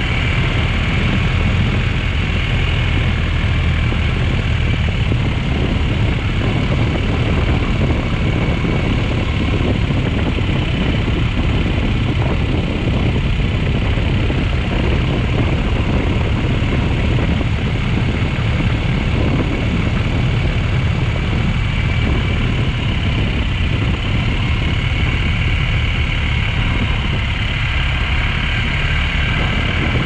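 BMW GS motorcycle being ridden on a dirt road: the engine runs steadily under an even rush of tyre-on-gravel and wind noise, heard from a camera mounted by the front left blinker.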